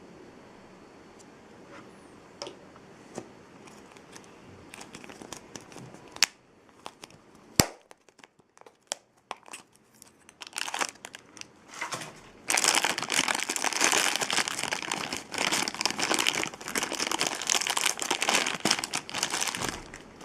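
Plastic toy packaging being handled: a few light clicks and two sharp clicks, then, from about halfway through, loud continuous crinkling and tearing as a blind bag is torn open.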